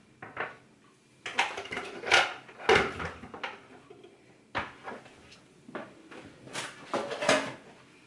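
Irregular knocks and clatter of a wooden tray being set down and shifted on a kitchen countertop, with an electric kettle lifted onto it.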